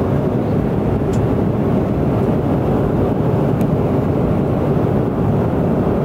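Small propeller airplane's engines running steadily, heard from inside the cabin: an even low rumble that does not change.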